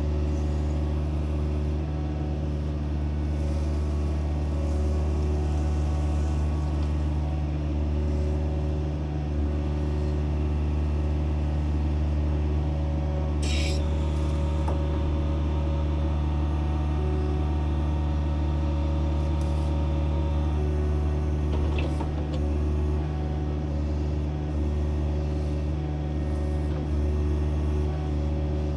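Excavator engine running steadily at a constant speed, with a brief high screech about halfway through.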